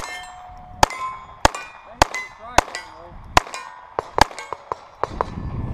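A rapid string of shots from a .22 rimfire Ruger pistol, about one every half second, each followed by the ringing of a hit steel plate target. The shots come quicker together about four seconds in.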